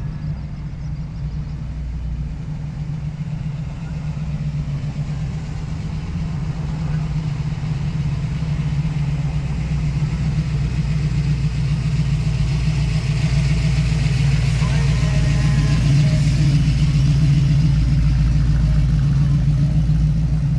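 Car engine running steadily with a low hum that grows gradually louder through the second half.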